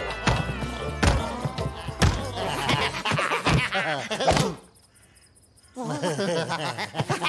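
Cartoon Rabbids screeching and babbling, with repeated thuds and whacks as they tumble on a wooden floor. The noise drops out for about a second around the middle, then the yelling resumes.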